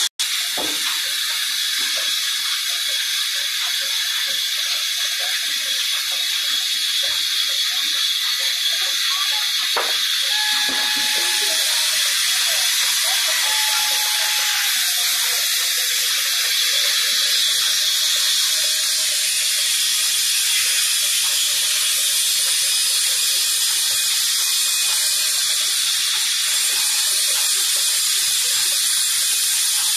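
Large band saw cutting timber: a steady hissing rasp from the blade running through the wood.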